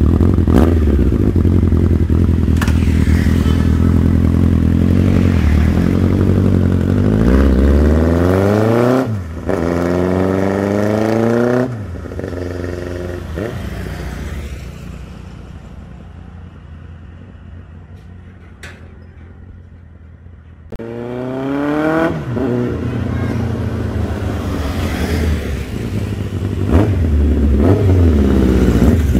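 Honda CB1300's inline-four engine through a twin Arrow aftermarket exhaust: revved hard at a standstill, then accelerating away through the gears with rising pitch and fading to faint. About two-thirds of the way in it grows loud again as the bike rides back past.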